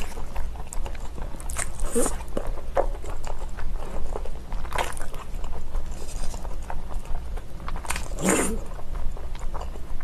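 Slurping and wet chewing of naengmyeon noodles in spicy sauce: many small mouth clicks, with a few longer slurps, the loudest about eight seconds in.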